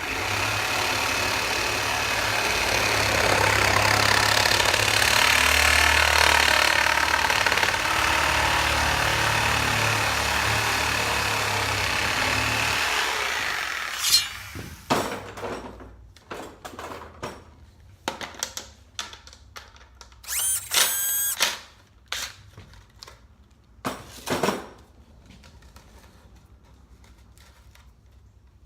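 Milwaukee Sawzall reciprocating saw running steadily as it cuts through 3-inch PVC pipe, then stopping about 13 seconds in. Scattered knocks and clatter follow as the cut pipe is handled, with a brief pitched whine about 21 seconds in.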